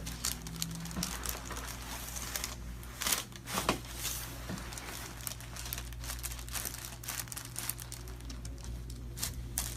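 Crinkling and rustling of material being handled or shifted, full of small crackles, with two sharper clicks about three seconds in. A steady low hum runs underneath.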